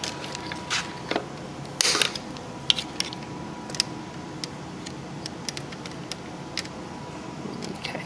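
Plastic clicks and crackles as the electrical connector is pried and unplugged from the throttle position sensor on an LS engine's throttle body, then the plug and corrugated harness loom are handled. The loudest cluster of clicks comes about two seconds in, with scattered lighter clicks after.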